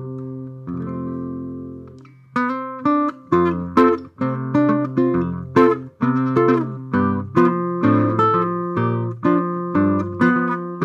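Solo guitar: a couple of chords left ringing and fading, then from about two seconds in a steady run of plucked chords and melody notes, several a second.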